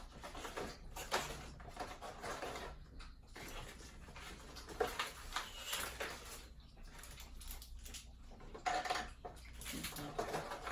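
Packaging being handled and opened by hand: scattered rustles and light clicks.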